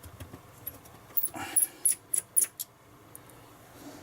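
A run of short, sharp, high-pitched ticks and squeaks, about five in a second and a half, from a screwdriver working a small screw out of a PlayStation 3 Slim's chassis.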